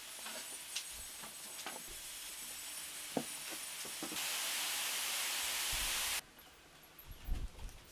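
Steady hissing noise that gets louder about four seconds in and cuts off suddenly about two seconds later, followed by a few low thumps.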